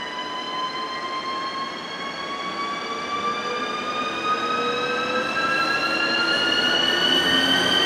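A ČD class 380 electric locomotive pulls a night train slowly into the platform, with a high whine made of several tones that glide slowly upward in pitch over a rolling rumble. It grows steadily louder as the train approaches.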